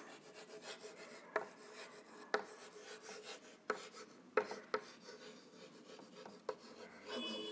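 Chalk writing on a chalkboard: faint scratching strokes with scattered sharp taps as the chalk meets the board.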